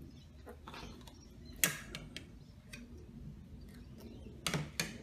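A spoon clinking in a bowl: a handful of short sharp clicks, the loudest about a second and a half in and two close together near the end.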